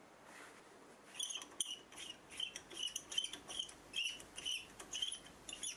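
Compressed air chirping in short, uneven high whistles, about two a second, as the regulator is opened to feed air to a miniature oscillating steam engine. The chirps stop abruptly near the end.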